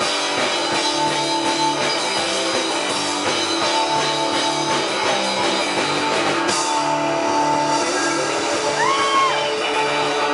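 Live rock band playing: electric guitar, bass and drum kit, with a pulsing bass line under sustained guitar chords. About two-thirds of the way through the drums and cymbals drop out, leaving the held chords, and near the end a swooping tone rises and falls.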